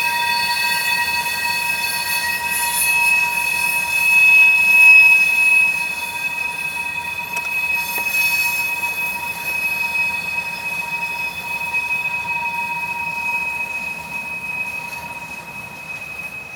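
Steel wheels of a passing freight train squealing against the rails: a steady high-pitched squeal in several tones over the rumble of the cars. It is loudest about four to five seconds in and eases off near the end.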